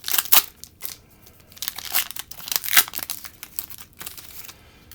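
Foil wrapper of a hockey card pack being torn open and crinkled by hand: irregular crackling rustles with a few sharper rips.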